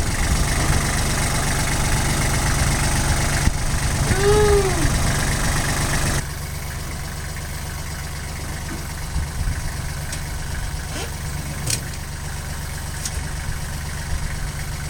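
Loader engine idling steadily. About four seconds in there is a brief squeal that rises and falls in pitch, and about six seconds in the whole sound abruptly becomes quieter.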